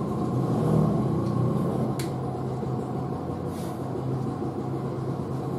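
Steady low rumble of background noise in a room, with a single sharp click about two seconds in.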